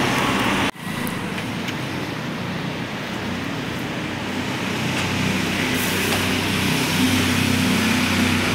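Steady city street traffic: motor vehicle engines running and passing, with the low engine hum growing somewhat stronger in the second half. The sound cuts out for an instant less than a second in.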